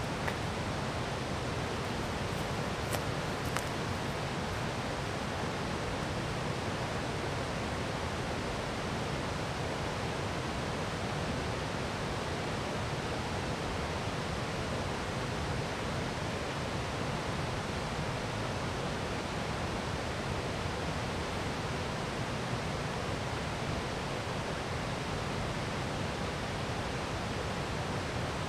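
River water rushing steadily, an even roar with no change through the whole stretch. A few faint clicks about three seconds in.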